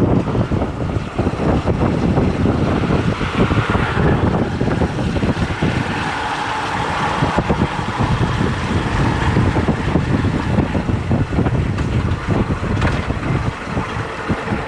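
Wind buffeting the microphone on a moving Honda Unicorn motorcycle, with the bike's single-cylinder engine running under the rushing air.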